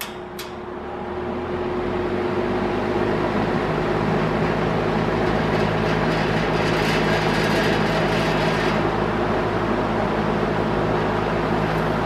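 Spartan Electric Arctic Aire all-metal box fan switched up to its high speed with a click of its push button. The motor and blades speed up over about two seconds, then run steadily with a loud rush of air and motor hum.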